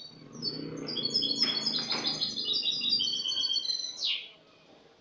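European goldfinch (Spanish jilguero) singing its clean song: a fast run of bright, high twittering notes that ends about four seconds in with a sharp falling note.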